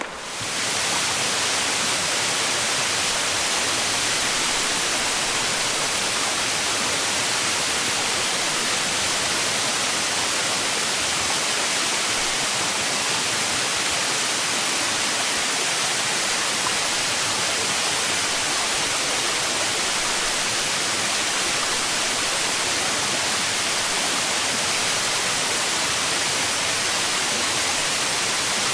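Waterfall rushing: a steady, loud hiss of falling water that starts abruptly about half a second in and holds unchanged.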